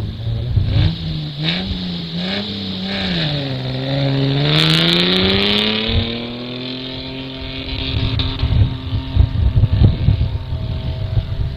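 Off-road 4x4 engine revving hard on a run up a sand dune: the engine note wavers, dips briefly, then climbs and holds high under full throttle.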